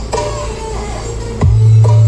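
Music played through a truck-mounted sound system: a gliding melody, then about a second and a half in a very loud, steady deep bass note comes in.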